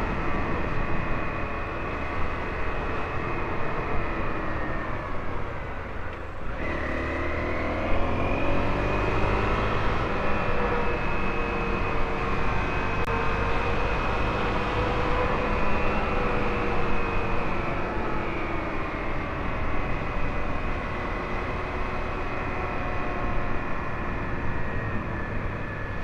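Honda CRF250L's single-cylinder engine, fitted with an aftermarket PowerBox header, running under way with wind noise. About six seconds in the engine note drops briefly, then climbs again as it revs back up.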